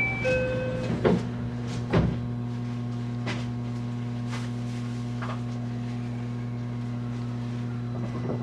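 Steady low electrical hum inside a JR West 223 series 1000 subseries electric train car, with scattered clicks and knocks about a second apart over the first few seconds.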